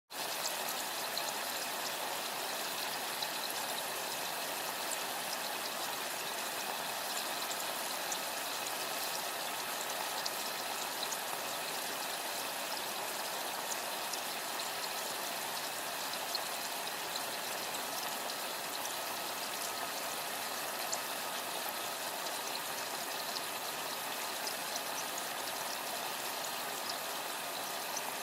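Boiling liquid bubbling steadily: a continuous stream of thin, fine bubbles popping in quick, dense succession.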